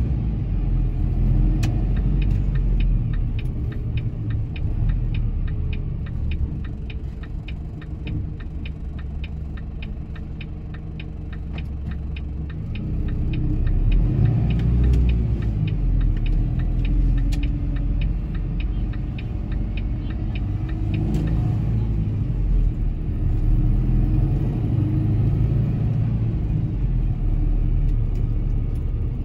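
Truck engine and road rumble heard from inside the cab while driving. It eases off and then picks up again about halfway through as the truck pulls away. A fast, regular ticking runs through the first half.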